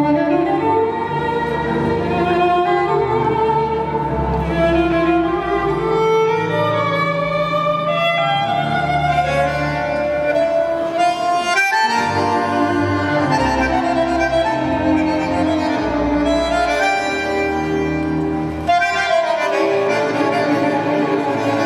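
Argentine tango orchestra music with violins carrying the melody, playing steadily with one brief stop in the music just before twelve seconds in.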